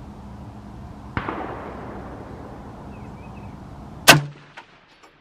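Rifle shot about four seconds in, very loud and sharp, at a steel target 300 yards out. A softer gunshot with a trailing echo comes about a second in, over a steady low hum.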